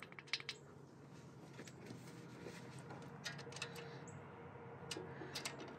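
Faint, scattered light clicks of metal on metal as hands handle the rocker arms and pick up a ratchet, over a faint steady hum.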